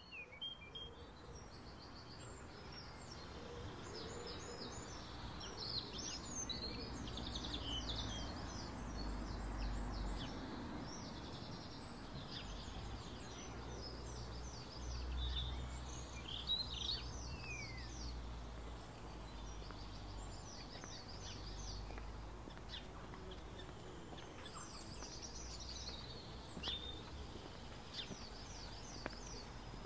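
Outdoor ambience of many small birds chirping and trilling over a low steady rumble, fading in from silence over the first few seconds.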